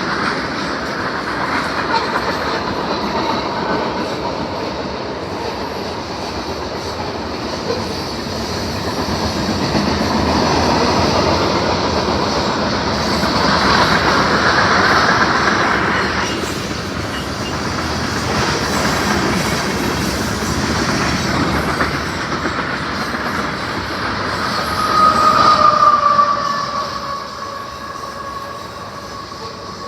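Train passing at close range: steady rolling noise of railroad cars on the track. A brief high squeal about 25 seconds in, after which the noise falls away.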